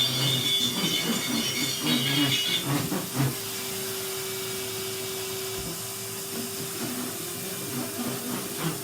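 Action-film sound-effect soundtrack playing from a small speaker: a steady hiss and hum, with a busier stretch of clattering and high ringing in the first three seconds.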